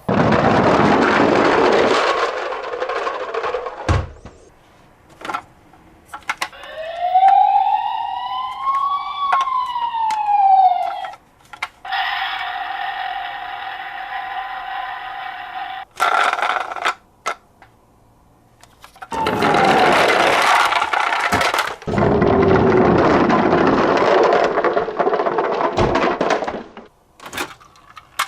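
Emergency-vehicle siren sounds: one wail rising and falling over about four seconds, then a steady tone held for about four seconds. Loud stretches of noise come near the start and again near the end.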